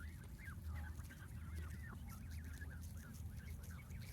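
A flock of Canada geese, many of them nearly grown young, calling close by: many short, high, overlapping calls that rise and fall in pitch, over a steady low rumble.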